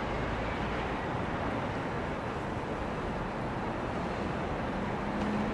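Shinkansen bullet train moving slowly along the platform: a steady rumbling rush of rolling and running noise. A low steady hum comes in near the end.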